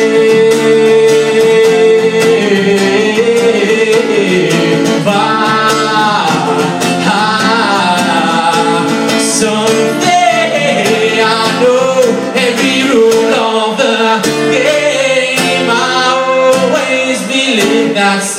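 A man singing live over his own strummed acoustic guitar. A long held note opens the passage, then he sings drawn-out, sliding phrases.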